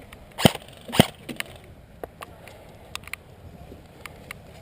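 Airsoft fire: two loud, sharp cracks about half a second apart, followed by a few faint, scattered ticks.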